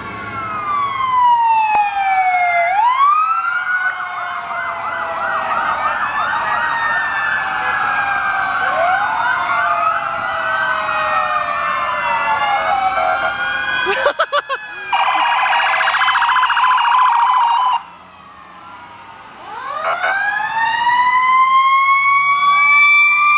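Several fire apparatus sirens wailing and yelping over one another at once. About halfway through come a few sharp blasts, then a steady horn blast of about three seconds, a brief lull, and a siren winding up slowly in pitch near the end.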